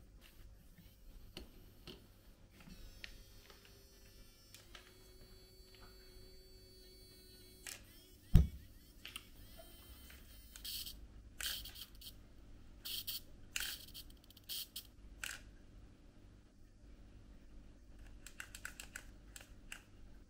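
Small mechanical sounds from a 1/64-scale micro RC crawler on a wooden tabletop: faint scattered clicks, one sharp thump about eight seconds in, then short bursts of high, quick ticking.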